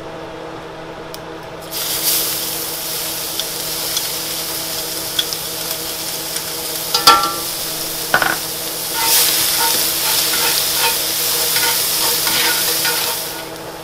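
Chopped shallots frying in hot rendered duck fat in a skillet: a steady sizzle that starts suddenly about two seconds in and cuts off suddenly near the end, while they are stirred with metal tongs. A couple of sharp clicks of the tongs on the pan come midway.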